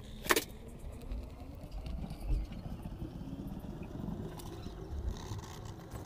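Coloured pencil being worked over a sketchbook page on a desk. Low bumps and handling noise, with one sharp click about a third of a second in.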